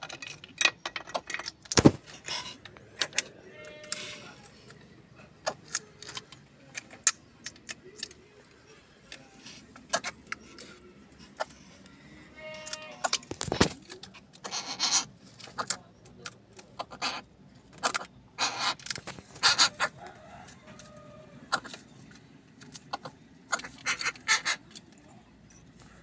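Irregular clicks, taps and rattling clatters of a greater coucal's bill and feet among snail shells on a wooden floor as it forages, with two louder knocks, one about two seconds in and one about halfway through.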